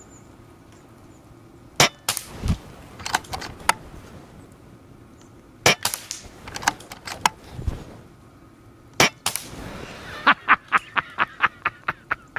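A .177 AGT Vulcan 3 pre-charged pneumatic air rifle, with no silencer fitted, firing several shots a few seconds apart, each a sharp crack, with lighter clicks among them. Near the end a man laughs in quick, even bursts.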